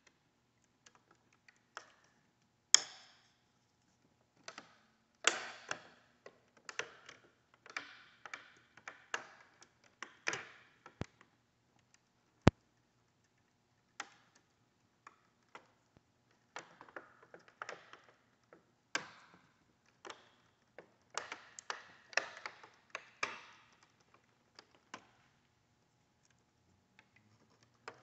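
Irregular clusters of small clicks and creaks from a hinged-panel folding mechanism as its central spool is turned by hand, winding the tension cables that pull the panels in. Two sharp single ticks stand out about halfway through.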